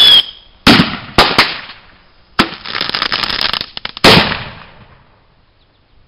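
Firecrackers exploding in a microwave oven: several sharp bangs with crackling between them, dying away about five seconds in.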